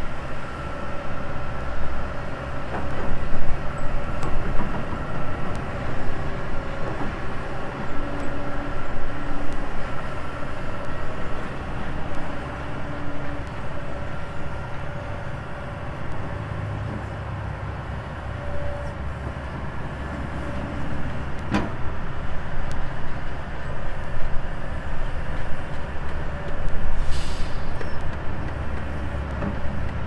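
Kobelco SK200 hydraulic excavator's diesel engine running under changing load as it digs, swelling and easing with held whining tones over it. A sharp knock about three-quarters of the way through, and a short hiss a few seconds before the end.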